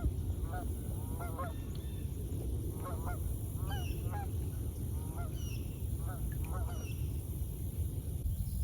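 A flock of Canada geese honking in flight, with repeated calls overlapping that stop shortly before the end.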